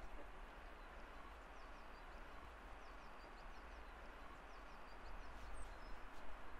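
Faint outdoor background noise with small birds chirping now and then.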